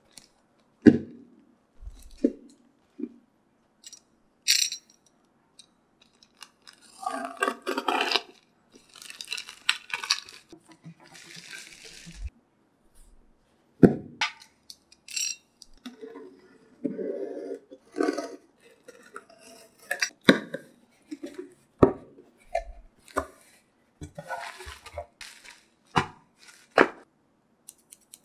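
Parcel unboxing with no speech: a plastic courier mailer and a taped cardboard mailer being handled and torn open, crinkling and tearing in stretches, longest in the first half, with sharp knocks and taps as the package is moved and set down on the desk.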